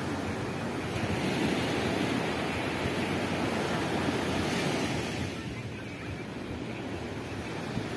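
Surf breaking and washing up a sandy beach, a steady rush of waves with wind buffeting the microphone. The wash eases for a couple of seconds past the middle, then builds again near the end.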